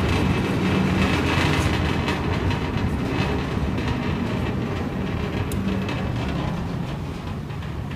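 Wolfking C400 frozen block grinder, a 125-horsepower machine with a 400 mm grinding plate, running empty with no meat in it: a steady low hum and rattling rumble that grows gradually quieter.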